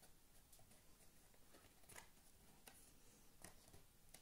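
Near silence with a few faint, brief scrapes and rustles of a paper sleeve being slid along a cardboard box.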